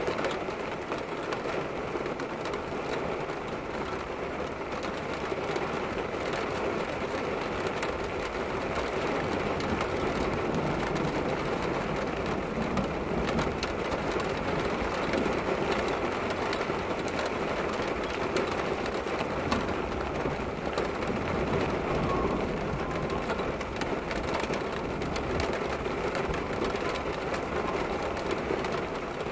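Heavy storm rain falling steadily, with a dense patter of drops striking window glass.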